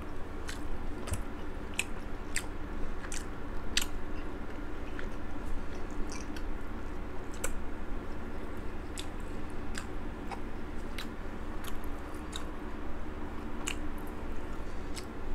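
Close-miked chewing of crab meat: wet mouth clicks and smacks at irregular moments, over a steady low hum.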